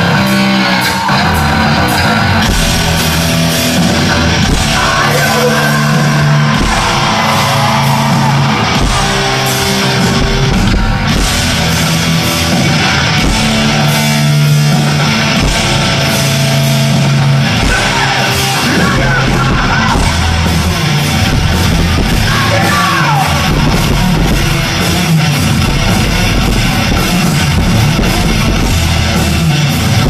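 Rock band playing live at full volume: electric guitar, bass and drums, with a singer's voice over the band.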